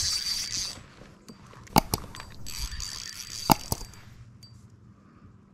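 Fishing reel's drag buzzing in two spurts as a hooked catfish pulls line off, with a few sharp knocks in between.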